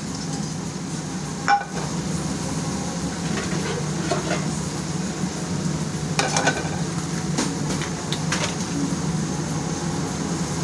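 Food frying with a steady sizzle, with a few short clinks of kitchenware.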